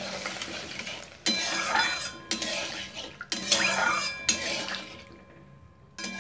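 A metal spatula stirring diced potatoes in water in a metal kadhai. It scrapes and clinks against the pan in strokes about a second apart, with a ringing tone after each, and stops about five seconds in.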